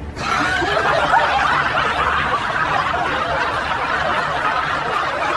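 A group of people laughing together, many voices overlapping in one steady wave of laughter.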